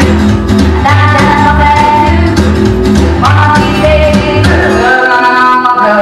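A rock 'n' roll record playing, with singing over guitar and a steady, repeating bass line. The bass drops out briefly about five seconds in.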